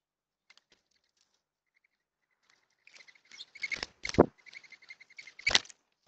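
Mourning doves flapping as they take off and land, their wings giving a rapid twittering whistle heard as a quick run of high pulses. Several loud wing flaps stand out, about four seconds in and again near the end.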